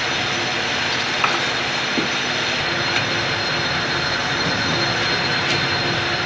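Steady mechanical noise with a faint hum, broken by a few light clicks and taps.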